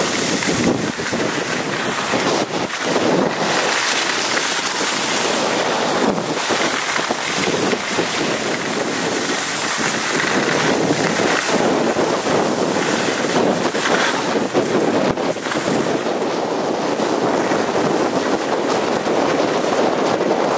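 Wind rushing over the microphone of a camera carried by a skier heading downhill, mixed with the steady hiss and scrape of skis over packed snow. The noise swells and dips irregularly.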